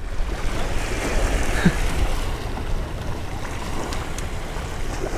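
Small waves washing and splashing over a rocky shoreline, with wind buffeting the microphone as a steady low rumble.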